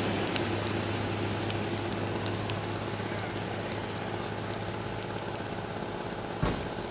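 Campfire burning, with irregular sharp crackles and pops over a steady low rush. A single low thump comes about six and a half seconds in.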